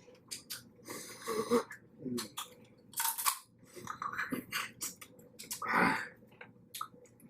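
Eating sounds of a seafood boil in butter sauce: wet chewing, sucking and small clicks, with a short throaty sound about six seconds in.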